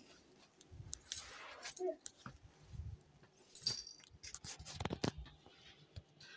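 Plush toys being handled: faint rustling and a few light knocks, the loudest around three and a half seconds in and a cluster near five seconds.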